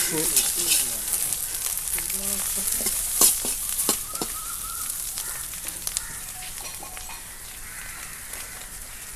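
Food sizzling and crackling in hot oil in a pan as it is stir-fried, with two sharp knocks about three and four seconds in. The sizzle grows quieter in the second half.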